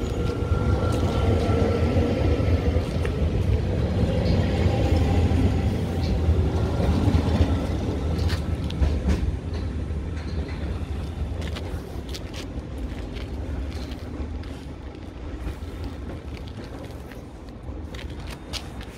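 NS SGMm Sprinter electric multiple unit pulling away: a rising traction-motor whine over the rumble of wheels on rail at first, then fading steadily as the train draws off. A few sharp clicks come in the second half.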